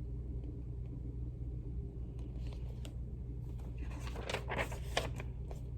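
A picture book's paper pages being handled and turned: a few short rustles and clicks about halfway through, over a steady low hum.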